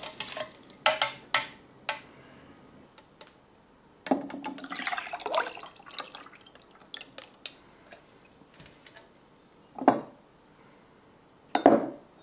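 Crystallised sports-drink powder being mixed into water in a container: a few sharp clinks early on, the liquid sloshing about four to six seconds in, then two dull knocks near the end.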